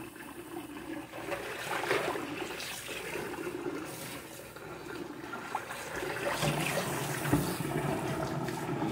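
Cold water running from a kitchen tap into the sink as dishes are rinsed, with a couple of brief knocks as the pieces are handled.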